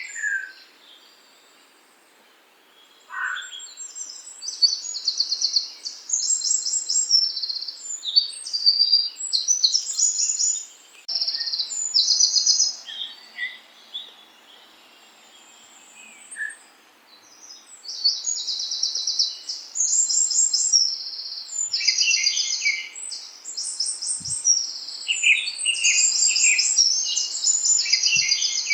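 Small songbirds singing: phrases of rapid, high-pitched trilled chirps a second or two long, repeated with short breaks and two longer quiet pauses.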